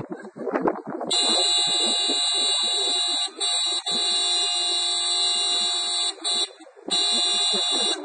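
Toyota RAV4's car horn blaring in long held blasts, set off by a dog inside the parked car leaning on the steering wheel. The horn starts about a second in, breaks off briefly twice, stops for about half a second a little after six seconds, then sounds again near the end.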